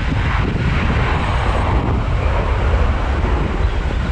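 Jet noise from a Boeing 737-800's CFM56 engines at takeoff thrust, a steady roar as the airliner lifts off and climbs away, with wind on the microphone.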